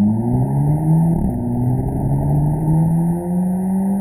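Mk5 VW GTI's turbocharged four-cylinder engine, breathing through a Manzo cat-back exhaust, heard at the rear bumper under hard acceleration. The revs climb steadily, with a quick dip in pitch about a second in as it shifts up a gear, then climb again.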